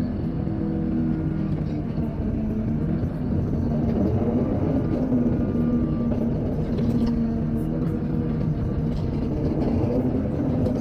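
Engine of heavy earthmoving machinery running steadily, its note rising and falling a little.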